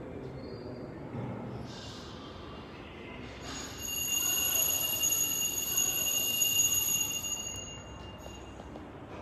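A metal bell rung continuously for about four seconds, a sustained high, bright ringing that stops abruptly. A short hiss comes before it.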